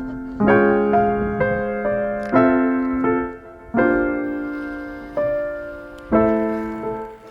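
Background piano music: slow chords struck every one to one and a half seconds, each ringing out and fading before the next.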